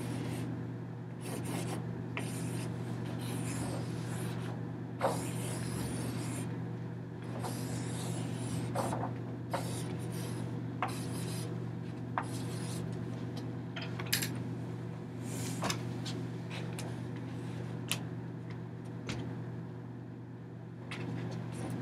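Rubbing and scraping against a large paper sheet hanging on the wall, with scattered sharp taps, over a steady low room hum.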